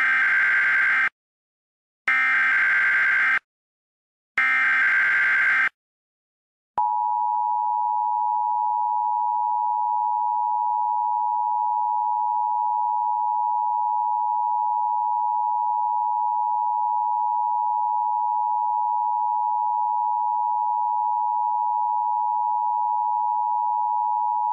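Emergency Alert System header: three screeching bursts of SAME digital data tones, each about a second long with a second's gap between, followed about seven seconds in by the EAS two-tone attention signal, a steady harsh dual tone that holds without a break.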